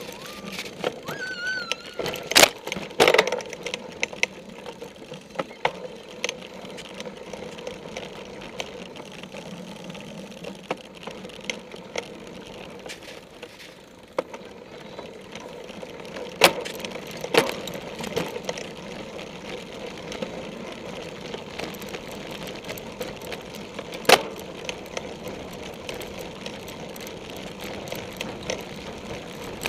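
A bike-mounted camera rattling as a cyclocross bike is ridden fast over bumpy grass: a steady rough hum of tyres and drivetrain, broken by sharp knocks and clacks from bumps. The loudest knocks come a few seconds in, again about halfway through, and once more about two-thirds of the way in. There is a brief high squeal just after the start.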